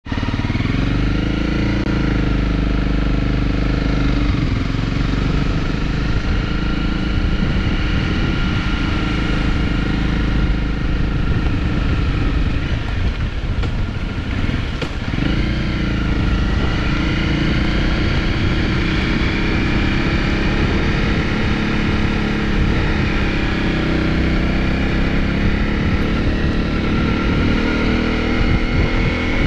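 Honda CRF250's single-cylinder engine running as the motorcycle rides along a wet lane. The engine note drops away briefly about halfway through, then picks up again.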